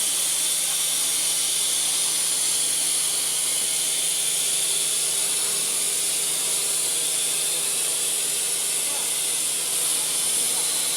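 Profile machining center running a chamfering cut: a steady high hiss with a faint low hum underneath, unchanging throughout.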